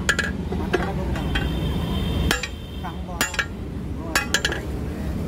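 A hand hammer strikes red-hot 20 mm steel rebar on an anvil, forging the flattened claw end of a crowbar. The blows are irregular, some coming in quick pairs or triples, with a brief metallic ring after several of them. A steady low hum runs underneath.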